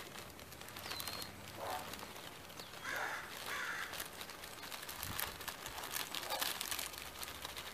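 Plastic bag rustling as a batch of foam Nerf Rival-style balls is poured out into a cloth holding bag, with many soft irregular clicks and patters. A few short calls sound in the background.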